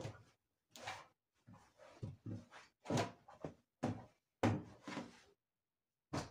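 Folded cotton sarees being handled on a table: a string of soft thumps and cloth rustles as one saree is lifted away and the next is set down.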